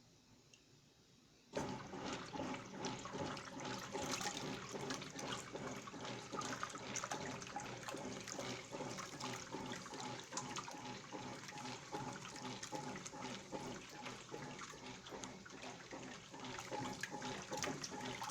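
Roper washing machine filling with water for a clean-washer cycle: water starts rushing and splashing into the tub suddenly about a second and a half in, then runs steadily.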